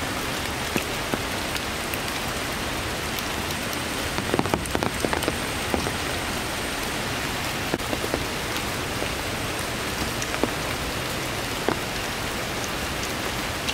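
Steady rain falling on rainforest leaves and stone: an even hiss dotted with sharp drop ticks, more of them about four to six seconds in.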